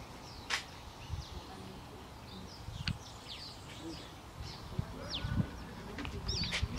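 Small birds chirping in short, quick calls, with scattered low thumps of footsteps on debris and a few sharp clicks.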